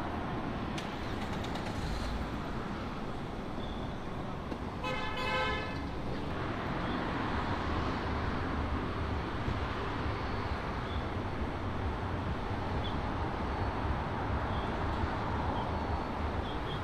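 Steady city street traffic noise, with a vehicle horn honking once, briefly, about five seconds in.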